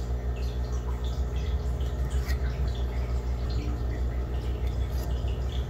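Pencil drawing guidelines along a metal straightedge on a pine board: faint scratching strokes and small ticks, over a steady low hum.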